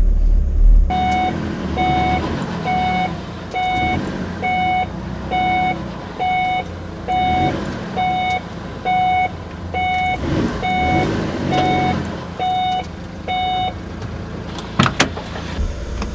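A 1996 Mitsubishi Minicab mini dump truck's reversing beeper sounding about once a second, some fourteen even beeps, over its engine running as it backs up. The beeping stops about two seconds before the end, and a couple of sharp knocks follow.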